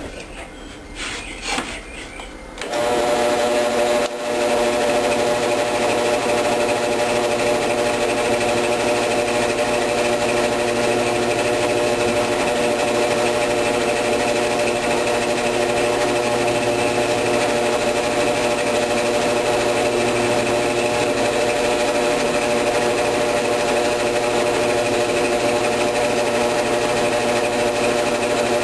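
Drill press switched on about two and a half seconds in after a few handling knocks, its motor then running steadily with a humming whine while a very small bit drills holes through a cypress board.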